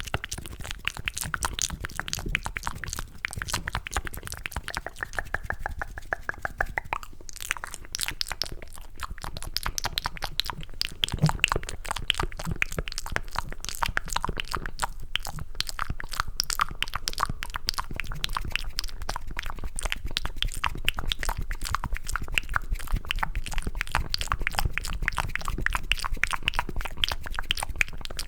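Close-miked cupped ASMR mouth sounds: a dense run of wet clicking and smacking from the tongue and lips, made to sound like chewing mac and cheese.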